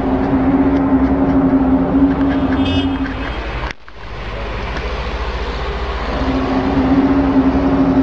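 A steady, horn-like drone on one low pitch over a low rumble. It breaks off abruptly just under four seconds in and comes back about two seconds later.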